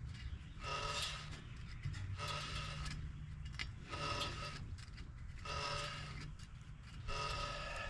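Front brake rotor of a 2017 Toyota Tundra turned by hand, the pads dragging on it with a squeaky rubbing sound five times, about every second and a half, over a low steady hum.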